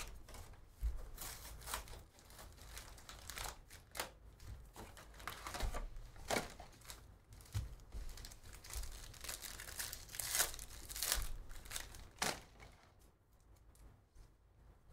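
Trading card pack wrappers being torn open and crinkled by hand: an irregular run of rustles and tears that dies down about twelve seconds in.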